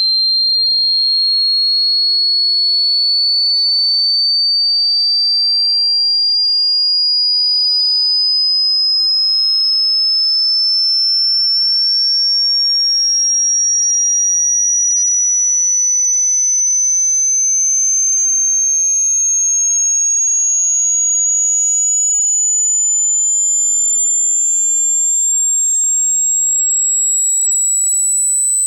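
A single pure sine-wave test tone, high and whistle-like, gliding slowly and steadily upward in pitch at an even, loud level: a hearing-test frequency sweep.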